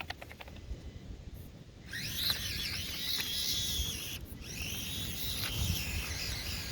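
Small electric motor and gearbox of a 1/24-scale Axial SCX24 RC crawler whining under throttle. The whine starts suddenly about two seconds in, rising in pitch as it spins up, cuts out for a moment midway and picks back up.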